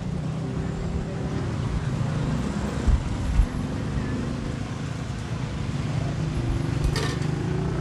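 Street traffic: a motor vehicle's engine running steadily close by, with a brief sharp click about seven seconds in.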